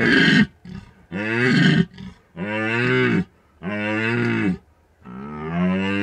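Red deer stag roaring in the rut: a run of five deep roars, each about a second long, with short breaths between them.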